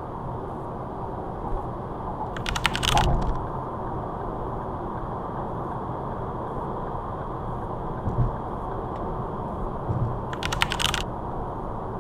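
Steady road and tyre noise inside a car moving at motorway speed. Two short bursts of rapid clicking come about two and a half seconds in and again near the end, with a couple of low bumps in between.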